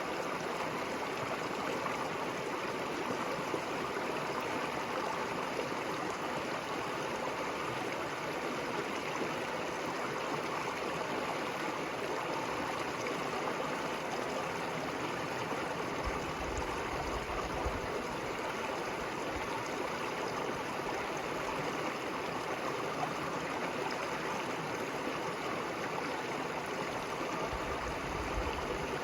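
River water flowing over stones: a steady, continuous rush and gurgle. A low rumble comes and goes in the second half.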